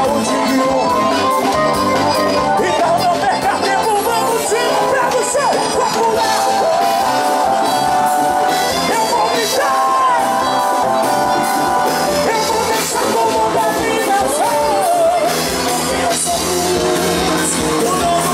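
Live band music with a voice singing over it: drum kit and accordion, with bass guitar.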